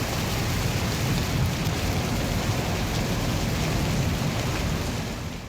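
Steady heavy rain with a low rumble underneath, fading out near the end.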